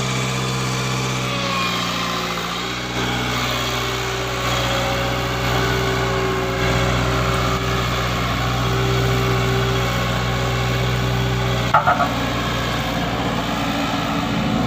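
Cummins 4BT four-cylinder diesel in a Dynapac vibratory roller running steadily, its speed dipping slightly about two and a half seconds in and then settling again. A quick run of three sharp knocks comes near the end.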